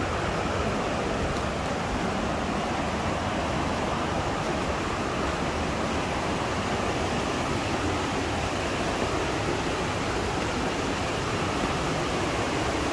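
Steady rushing of a river in the gorge below, an even noise without breaks.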